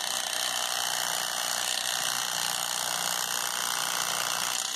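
Electric fillet knife running steadily, a motor buzz from its reciprocating serrated blades as they cut through a fish fillet.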